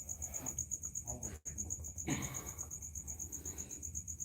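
Crickets chirping in a fast, even trill of about seven or eight high pulses a second.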